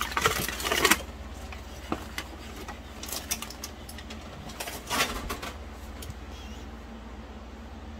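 Aluminium foil crinkling and rustling as it is pulled open around a cooked fish during the first second, then two more brief handling noises about three and five seconds in, over a steady low hum.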